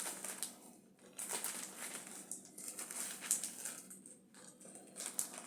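Thin plastic Lego baseplates being handled, giving an irregular crinkling and rustling.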